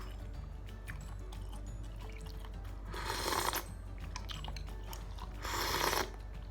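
Eating noodles and meatballs: two short, loud slurps, one about halfway through and one near the end, between small chewing clicks, over background music.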